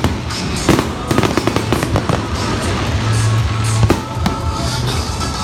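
Fireworks going off, a rapid irregular string of bangs and crackles with a sharper bang about four seconds in, over music with a steady bass.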